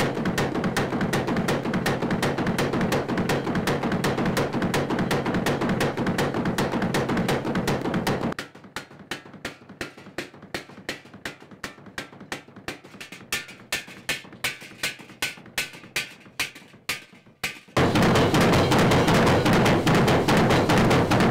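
Water-driven trip hammer pounding iron in a steady, regular rhythm of blows, with loud rushing water behind it for the first third and again near the end. In the quieter middle stretch the blows stand out clearly, about two or three a second, some ringing briefly.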